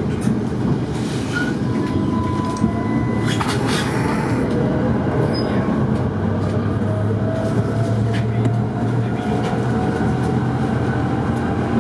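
Tatra T5C5 tram running at speed, heard from inside the car: a steady rumble of wheels on the rails and traction running gear, with a faint whine and a brief clatter about three and a half seconds in.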